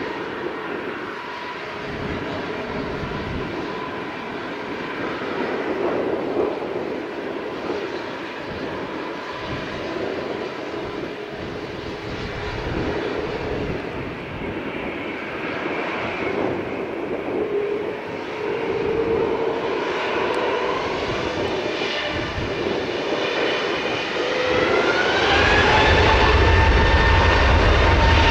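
Airbus A320neo's CFM LEAP-1A turbofans running at low power with a steady whine as the jet moves onto the runway. About twenty-five seconds in, the engines spool up with a rising whine and a deep rumble as takeoff thrust is set.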